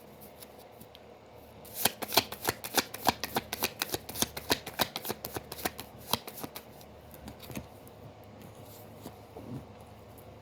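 Tarot cards being shuffled by hand: a quick run of card clicks starting about two seconds in and thinning out after about six seconds to a few scattered taps.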